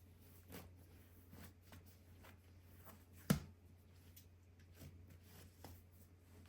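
Quiet hand-handling sounds at a kitchen work surface while shaping sourdough: scattered soft taps and rustles, with one sharp knock about halfway through.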